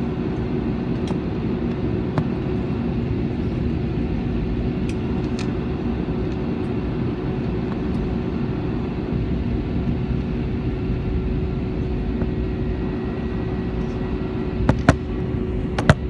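Steady low rumble and hum of a Volaris Airbus airliner's cabin on the ground after landing, with a few sharp clicks, two of them close together near the end.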